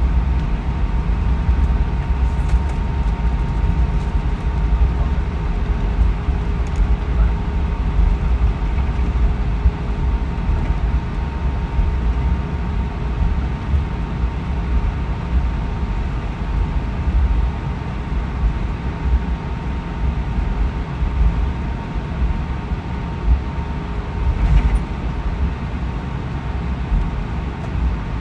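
Airbus A320 cabin noise while taxiing: a steady low rumble that wavers in level, with two faint steady whines over it and a light knock or two.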